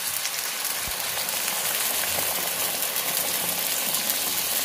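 Water poured in a steady stream into a hot frying pan of jujubes fried in mustard oil and melted sugar, splashing and sizzling as it hits the hot oil.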